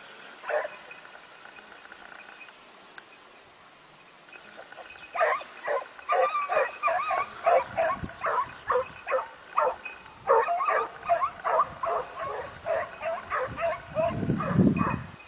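Hunting hounds barking and baying on the chase after a rabbit. There is one bark just after the start, then from about five seconds in a steady run of barks, roughly two a second. A low rumble comes near the end.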